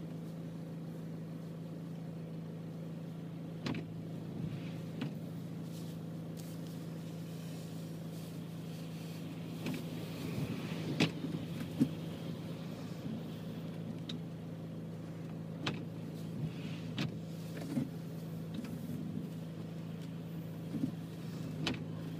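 A steady low mechanical hum at one constant pitch, with scattered short clicks and knocks on top, two sharper ones about eleven and twelve seconds in.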